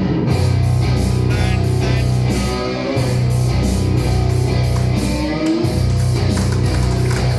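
Rock music with distorted electric guitar and a steady driving beat.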